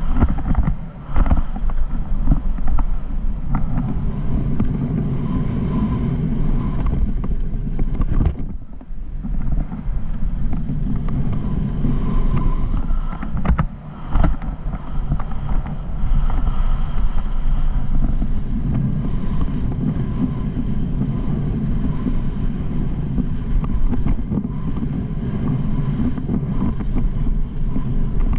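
Wind rushing over a helmet-mounted camera's microphone as a mountain bike descends a dirt singletrack at speed, with tyre noise and scattered knocks and rattles from the bike over bumps. The rush drops out briefly twice.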